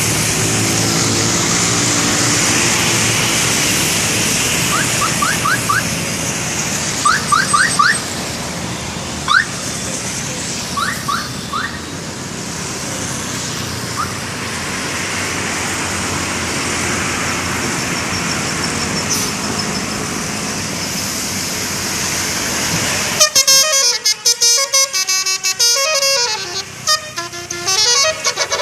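Bus engine and road noise with a few short rising chirps. About 23 s in, a bus's telolet horn starts, playing its loud multi-tone melody of changing pitches.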